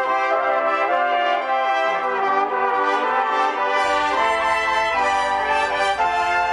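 Brass music with trumpet, several parts holding sustained notes together in slow-moving chords. A low bass comes in about four seconds in.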